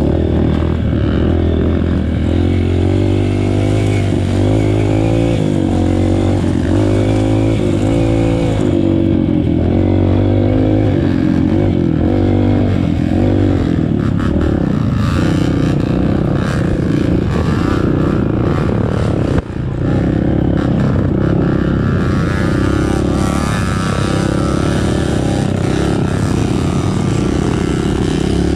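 Trail motorcycle engine running under way, its pitch rising and falling with the throttle. From about halfway through there are knocks and rattles.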